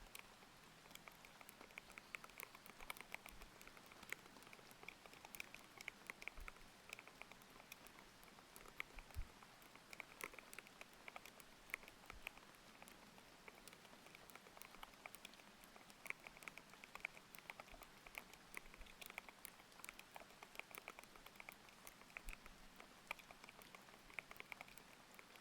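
Continuous normal typing on a mechanical keyboard with Aqua King linear switches: quick, irregular keystroke clicks, many per second, over a steady hiss of rain.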